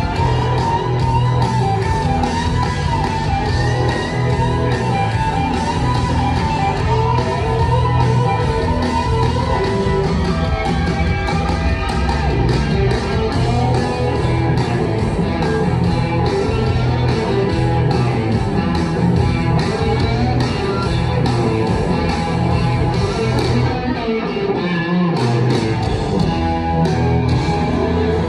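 Live rock band playing in an arena, led by electric guitars over drums, heard from high in the audience. The low end drops back briefly about 24 seconds in, then comes back in.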